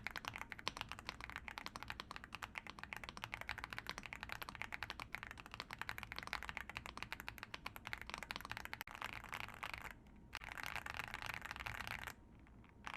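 Fast typing on an Aula F99 gasket-mounted mechanical keyboard with Reaper switches, giving a dense run of keystrokes the reviewer calls creamy. The typing breaks off briefly about ten seconds in and again near the end.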